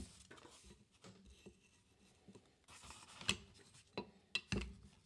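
Faint handling of a hard plastic card case and card box on a table: quiet at first, then a few sharp clicks and taps in the second half, the last a low thump as something is set down.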